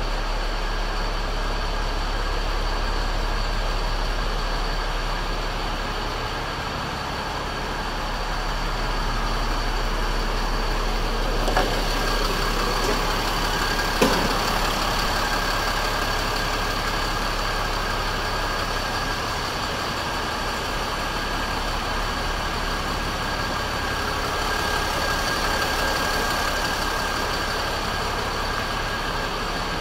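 Cummins diesel engine of a Ford F-650 dump truck idling steadily, with a steady high whine running along with it. Two short sharp clicks come near the middle.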